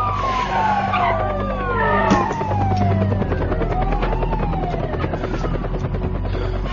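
Several police sirens wailing at once, their overlapping tones sliding slowly down and up, over a steady low drone.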